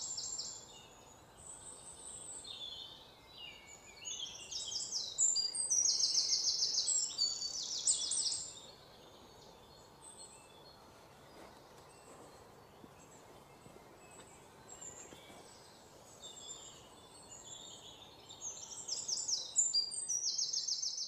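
Small birds chirping and trilling, high-pitched and in repeated bursts, busiest about five to eight seconds in and again near the end.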